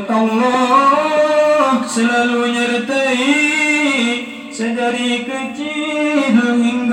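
A man chanting a devotional recitation into a microphone: a slow melodic line of long held notes that waver and ornament, with brief breaks between phrases.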